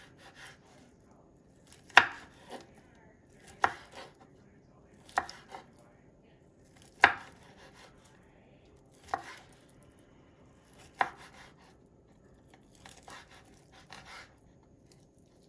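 Kitchen knife slicing fried tofu into strips on a wooden cutting board. Each cut ends in a sharp knock of the blade on the board, about one every two seconds, with a few softer taps between.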